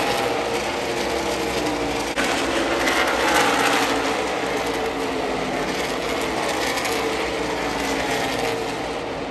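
Engines of a field of NASCAR stock cars (V8s) racing past on the oval, a continuous loud buzz. Overlapping engine notes keep sliding down in pitch as car after car goes by.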